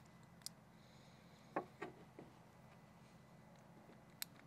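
A few light clicks and taps of small parts being handled, a machine screw, a CPVC plastic cap and a steel-rimmed cup magnet, as they are fitted together, over near silence. The loudest tap comes about a second and a half in.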